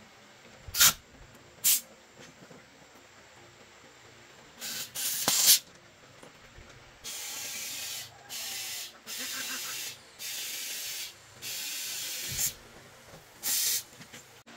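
Compressed air hissing from an air-hose inflator in repeated bursts as a tractor inner tube is pumped up: two brief puffs, a louder pair, then about six bursts of roughly a second each with short gaps between.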